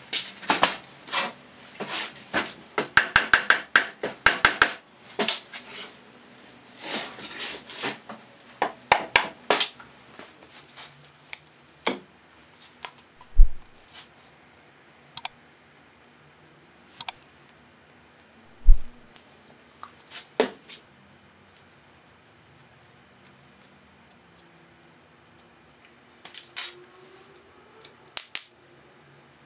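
Heavy wooden beam blocks being shifted and handled on a steel workbench: a run of scraping and knocking, then two heavy deep thumps a few seconds apart and scattered sharp clicks.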